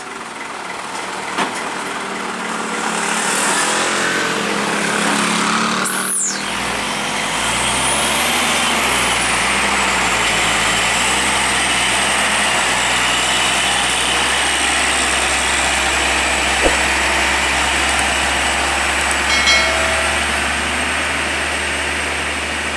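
Loaded Hino medium truck's diesel engine pulling slowly up a steep grade, getting louder over the first few seconds and then running steadily under load. A thin high whistle rises and then holds steady over it.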